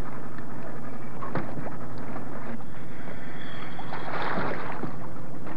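A motor hums steadily under a loud splash about four seconds in, as a diver in a wetsuit jumps feet-first into the sea.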